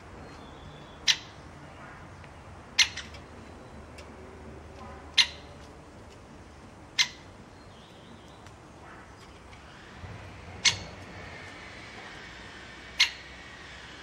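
Great spotted woodpecker giving its sharp single "kik" call six times, about every two seconds.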